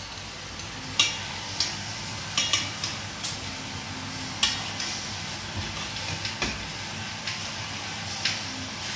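Sausage sizzling in a pan of sauce while a metal utensil stirs and lifts it, with about eight sharp clinks of metal on the pan.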